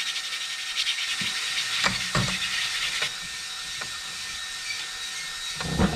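Fine-grit sandpaper scrubbed back and forth over the carbon on a Ski-Doo snowmobile piston top, wetted with WD-40, in quick scratchy strokes that stop about three seconds in. A couple of light knocks follow, and there is a thump near the end.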